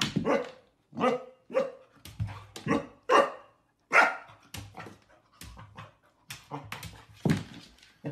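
Golden retriever puppy barking in a quick series of short barks, about a dozen over the few seconds. It is barking playfully at its own reflection in a mirror.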